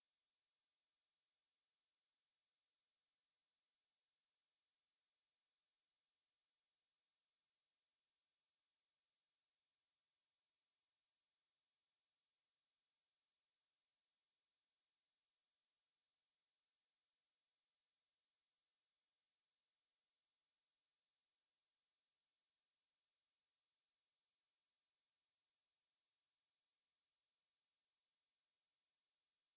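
A pure 5037 Hz sine-wave test tone, one steady high-pitched note held unchanged at constant level.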